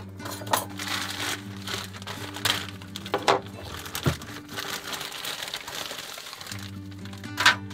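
Plastic bag of frozen dinner rolls crinkling and rustling as it is handled and gripped, with a sharp click about four seconds in.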